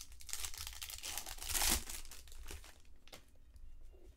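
Trading-card pack wrapper crinkling and tearing. It is loudest about a second and a half in, then dies down to a few light clicks.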